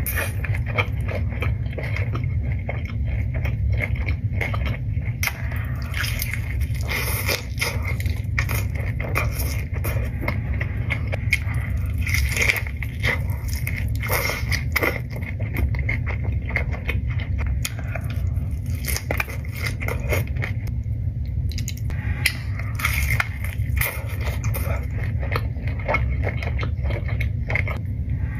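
Close-up eating of tacos: wet chewing, biting and crackling mouth sounds, many small clicks throughout. A steady low hum runs underneath.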